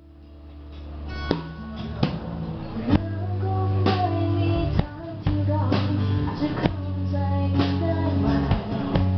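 Live band playing, heard close to the drum kit. Sharp drum and cymbal hits come about once a second over low held bass notes. The music swells up over the first few seconds.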